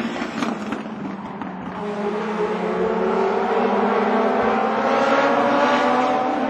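Several Legend race cars with Yamaha motorcycle engines lapping the short oval at high revs. The engine note fades and drops in pitch over the first second or two as one car draws away, then rises and grows louder as the cars come back around.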